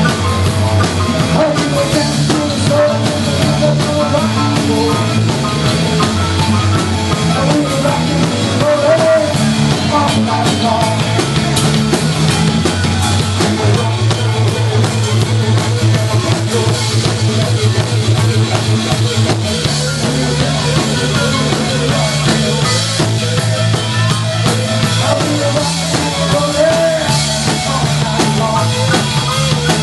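Live rock band playing loudly: electric guitars, bass guitar and a drum kit, the bass line moving between a few held notes.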